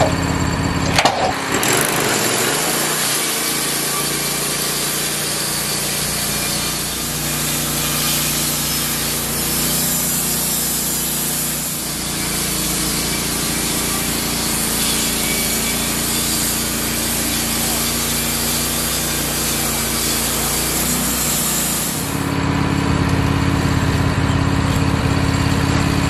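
Wood-Mizer LT15 band sawmill cutting through a log. After a knock about a second in, the band blade makes a steady sawing noise over the running engine for about twenty seconds. The cut ends about 22 seconds in, and the engine runs on alone.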